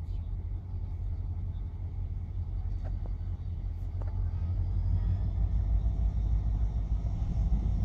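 Diesel locomotive approaching at speed, a low engine rumble that grows louder from about halfway through.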